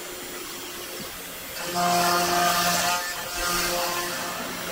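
Genmitsu 4040 Pro CNC router cutting 3 mm plywood: the spindle and bit give a high hiss, and the stepper motors add steady tones that change pitch and stop and start as the axes move. It is quieter for about the first second and a half, then louder.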